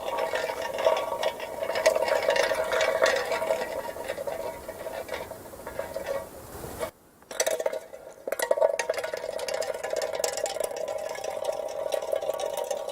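Empty metal soda can rolling over asphalt: a steady, rattling metallic ring with many small clicks. It breaks off briefly about seven seconds in, then the rolling starts again.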